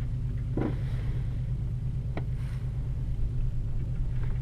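Steady low rumble in the cockpit of a PW-6U glider rolling on a grass runway behind the tow plane at the start of an aerotow takeoff, with light knocks about half a second and two seconds in.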